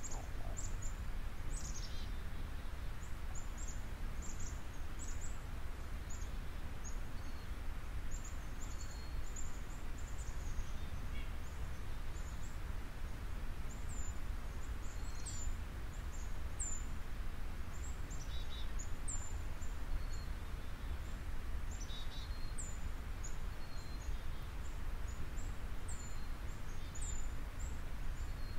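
Steady low background rumble with small birds chirping, short high-pitched chirps repeating irregularly.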